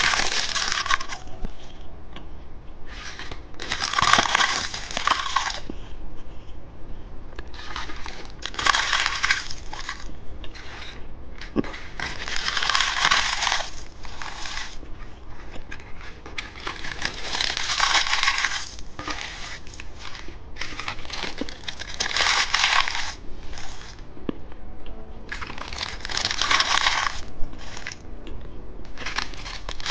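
Crisp edible rice-paper candy cups being bitten and chewed close to the microphone, a crunching sound in bouts of a second or two, about every four seconds.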